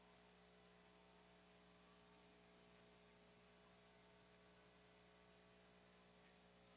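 Near silence, with a faint steady electrical hum and hiss.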